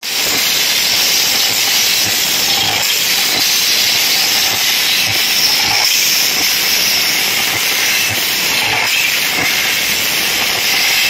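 A loud, steady hiss with no beat or tune in it, strongest in the high range.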